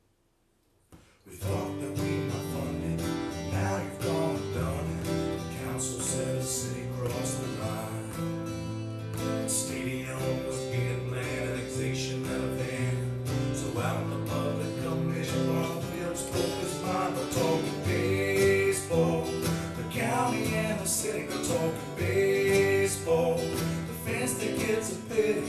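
Country-style music with strummed acoustic guitar, starting about a second in.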